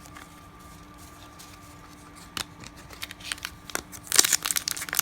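Trading-card pack wrapper being torn open and crinkled: mostly quiet at first, then a few sharp crackles, and denser crinkling in the last second.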